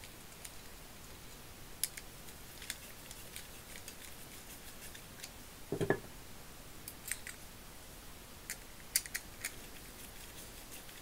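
Small metallic clicks and ticks of a screwdriver working the cover-plate screws of a half-inch drive ratchet head, with small parts handled. There is a duller knock about six seconds in.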